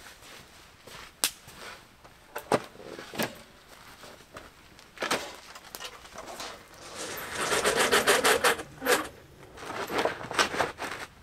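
Camping gear being handled on the ground: scattered knocks and clicks from a black plastic hard case being moved, with a rapid, evenly spaced run of clicks from about seven to eight and a half seconds in, then more clicking near the end.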